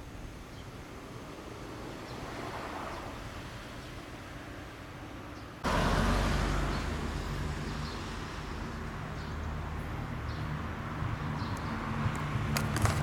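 Outdoor background noise: a faint hiss that jumps abruptly louder about halfway through, then carries a low steady hum, with a few sharp clicks near the end.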